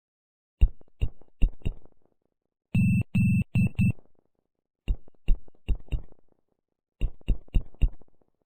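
Morse code sounded as electronic beeps: four letter groups of short fading dots and longer held dashes, with about a second of silence between groups.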